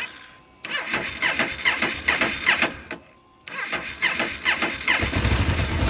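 Honda CB500's parallel-twin engine being cranked by its electric starter in two bursts with a short pause between, then catching and running near the end. The cranking is on a battery that is down a bit.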